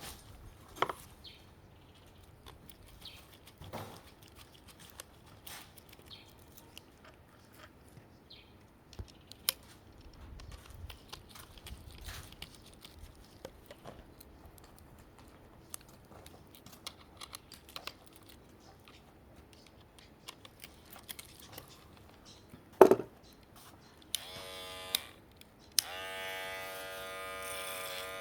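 Hair clippers being handled with light clicks and knocks, one sharp knock standing out. Near the end the electric clippers are switched on briefly, off, then on again and run with a steady buzz; the blade is dull and not cutting.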